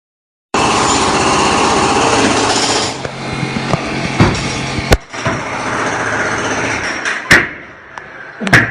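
Construction-site noise. A loud, dense machine clatter starts about half a second in and eases off after about three seconds into a lower steady din, broken by a few sharp knocks.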